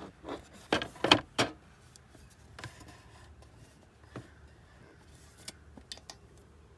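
A quick run of sharp knocks and clatter, loudest about a second in, then scattered light clicks: small cooking appliances such as a plug-in skillet being picked up, shifted and set down.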